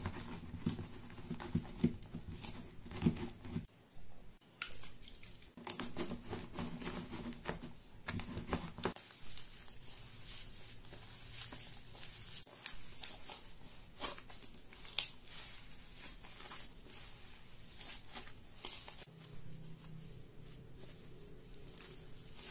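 Green fluffy slime, made of white glue and shaving cream, being stirred in a bowl and then kneaded and stretched by hand, giving many small sticky pops and crackles.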